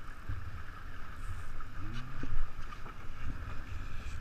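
Wind buffeting the microphone over the steady rush of water along a 49er skiff's hull as it sails under gennaker at about seven knots, with a louder gust about two seconds in.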